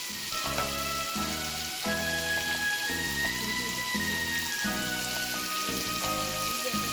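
Chicken frying in oil in a pan, a steady sizzle, with background music playing over it.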